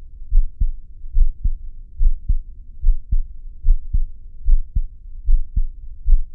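Heartbeat: a steady rhythm of low double thumps (lub-dub), a little over one beat a second.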